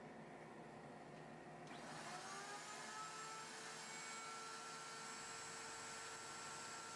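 Router motor in a router table switching on about two seconds in, its whine rising as it spins up to speed, then running steady.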